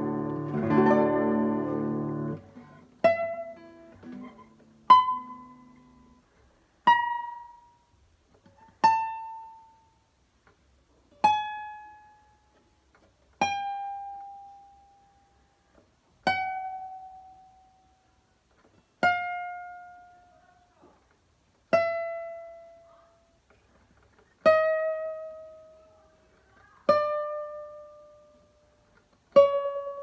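Lee WonKyu 'Original 100' model nylon-string classical guitar being sound-tested: a few ringing chords, then single plucked notes about every two to three seconds, each left to ring out and die away, stepping mostly downward in pitch.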